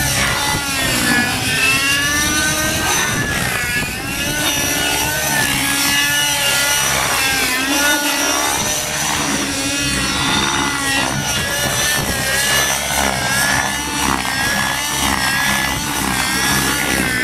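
JS Model TZ50-V2 radio-controlled helicopter with torque-tube tail drive flying aerobatics: its motor and rotors whine, the pitch sweeping up and down again and again as it climbs, flips and dives.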